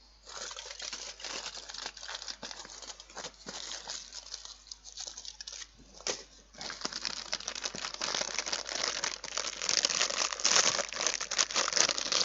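Small chocolate wrappers crinkling as they are handled and unwrapped by hand, a continuous rustle that grows louder about halfway through.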